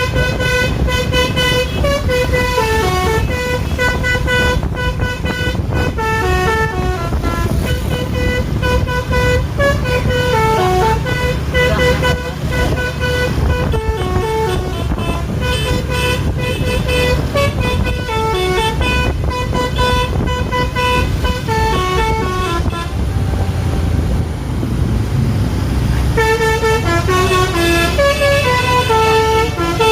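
Bus 'telolet basuri' musical horn playing a tune of stepped, held notes over the bus's engine running. The tune breaks off for a few seconds about three-quarters of the way through, leaving only the engine, then starts again near the end.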